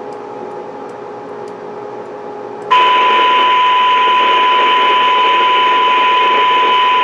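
Low hum and hiss, then about two and a half seconds in the repeater receiver's squelch opens abruptly and a steady 1,000-cycle test tone with hiss comes through its audio. This is the receiver just picking up the test set's weak FM signal at its sensitivity threshold, about −121 dBm.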